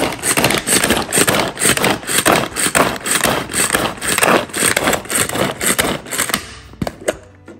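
Hand-operated spinning food chopper (Mainstays 4-cup) worked in quick repeated strokes, about three a second, its blades whirring and chopping through onion, green chilli and tomato in the plastic bowl. The strokes stop about six seconds in, followed by a couple of clicks.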